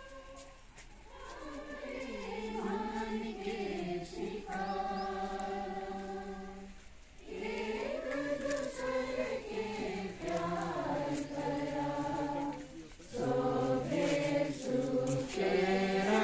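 A group of voices singing a slow hymn together in phrases, with short breaks between lines about 7 and 13 seconds in.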